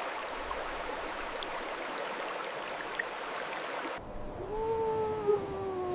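Running water, a steady rushing hiss. About four seconds in, the water sound cuts off and an animal's long pitched call begins, falling slowly in pitch as it goes on.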